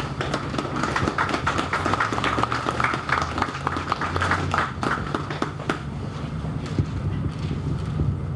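Audience applauding, a dense patter of hand claps that thins out after about six seconds.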